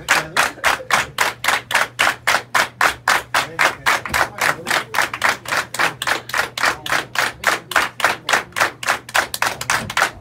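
Crowd clapping in unison at a steady, even beat of about four claps a second: an audience calling for an encore.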